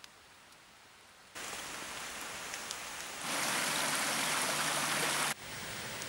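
Rain falling as a steady hiss with a few scattered drip ticks. It is faint for the first second or so, then steadier, and it jumps abruptly louder and brighter for about two seconds before dropping back.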